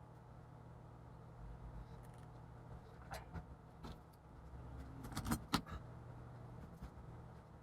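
Faint clicks and taps from handling laptop parts, a few scattered and a quick cluster about five and a half seconds in, over a steady low hum.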